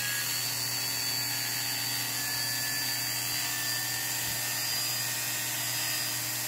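Corded electric animal clippers running steadily with a low buzz and a high whine as they clip fur from a small dog's leg to expose a vein.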